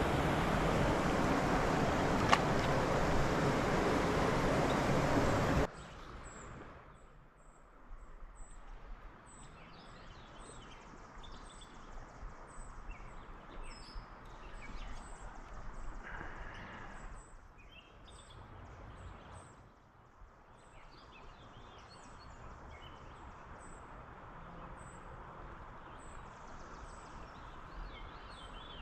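Steady rushing of river water, cut off abruptly about six seconds in. Then a much quieter outdoor background with birds chirping and a high chirp repeating steadily.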